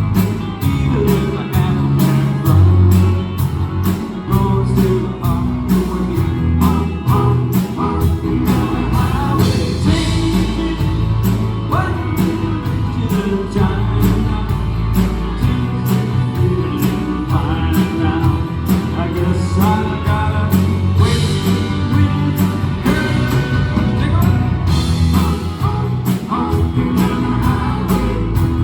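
Live rock band playing an upbeat song, with a steady drum beat, bass and sung vocals.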